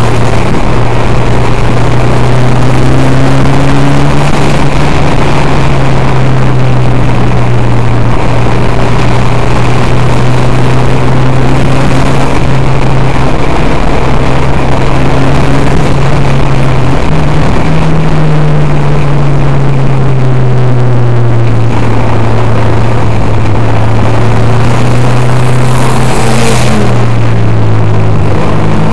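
Race car's engine heard from inside the cabin, loud and running at fairly steady revs. About seventeen seconds in the pitch jumps up, then slowly falls away.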